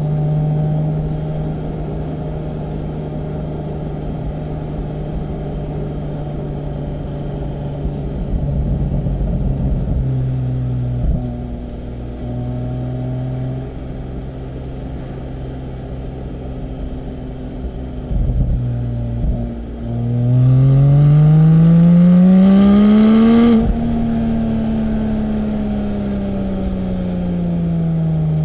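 Porsche 718 Spyder's naturally aspirated 4.0-litre flat-six with sports exhaust cruising at a steady note. About twenty seconds in it accelerates hard, its note rising for about three seconds, the loudest part. It then lifts off, and the note falls slowly as the car slows.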